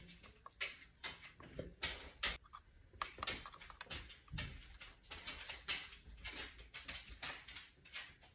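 Small spice jar of ground cinnamon shaken and tapped against a metal spoon, a string of light, irregular clicks and taps, about two or three a second, that stop at the end.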